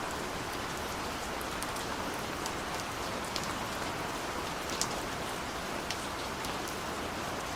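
Steady rain, an even hiss with scattered individual drops ticking, and no music over it.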